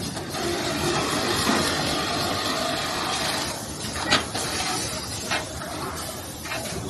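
Automatic towel sewing machine running with a steady mechanical whirr and hiss, with two sharp clicks in the second half.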